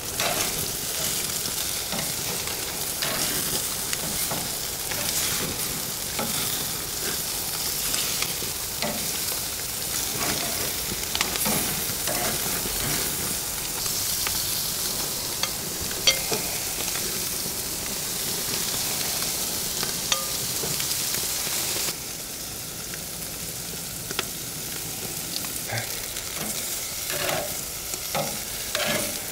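Chicken wings sizzling on the hot grates of a gas grill, a steady frying hiss, with a few sharp clicks of metal tongs against the grate as the wings are turned. The sizzle steps down a little about three quarters of the way through.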